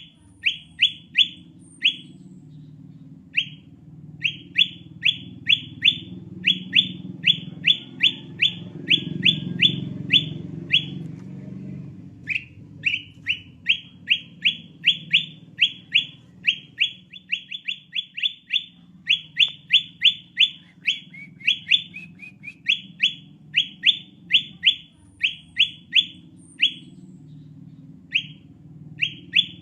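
Kutilang emas (bulbul) lure call: short, sharp whistled notes that each drop in pitch, repeated fast at about three or four a second in long runs, with a brief pause near the middle. A low rumble runs underneath.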